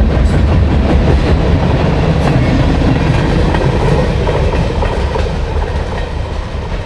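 CSX mixed freight train rolling past, a loud low rumble with the clatter of railcar wheels on the track. It fades gradually over the last few seconds as the train moves off.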